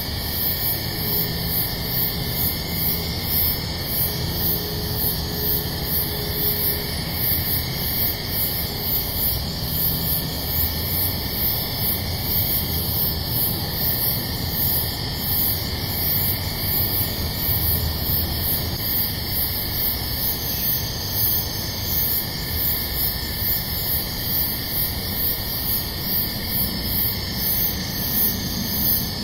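Steady hiss of night-time background noise, with a regular high-pitched pulsing a little under twice a second.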